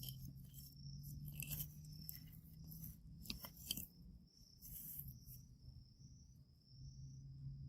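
Faint insects chirring in a steady high-pitched drone, with a few scattered short crackles and clicks, several clustered around the middle.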